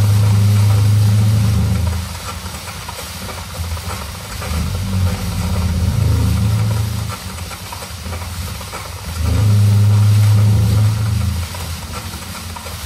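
Sample-based electronic music played over PA speakers: a deep bass tone swells in three times for about two seconds each, over a steady hissing noise.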